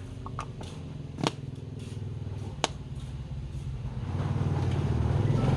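A motor running with a steady low hum that grows louder over the last second and a half, with two sharp knocks about a second and a half apart.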